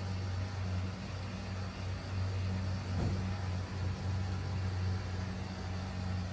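A steady low machine hum with a faint higher overtone, dipping briefly now and then, and a faint click about three seconds in.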